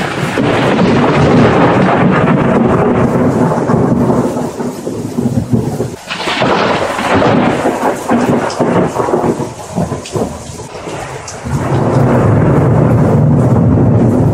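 Thunderstorm sound effect: thunder rumbling over steady rain. The rumble eases twice, around six and ten seconds in, and swells back loud near the end.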